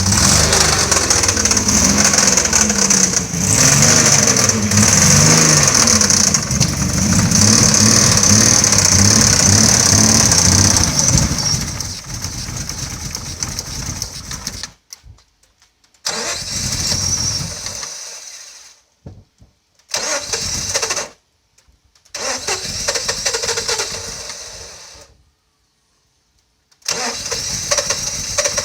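Mazda KL-DE 2.5-litre V6 engine running and revved, with a knock that is the fault being checked. Its pitch shifts up and down while loud for the first dozen seconds, then it runs quieter, and the sound cuts out and returns several times in the second half.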